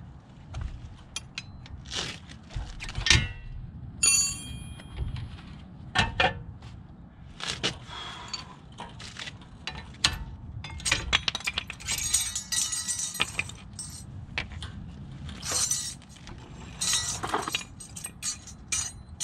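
Metal tools and brake hardware clinking and clattering as a wrench works on a front disc-brake caliper bracket: irregular sharp taps and scrapes, a brief metallic ring about four seconds in, and a run of rapid clicking around twelve seconds in.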